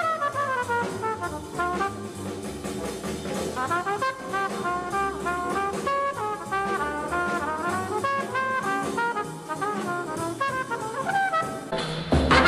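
Bebop jazz recording: a trumpet playing fast, running melodic lines over a rhythm section. Near the end it cuts abruptly to a different, louder recording.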